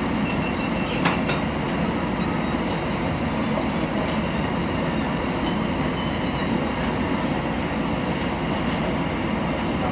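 New Orleans Canal Street line streetcar standing still in the rain: a steady low rumble and hiss with one sharp click about a second in.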